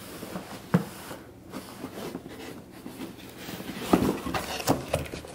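Gloved hands handling a long cardboard shotgun box on carpet: soft scuffing and rubbing with a few sharp knocks, one about a second in and two more near the end.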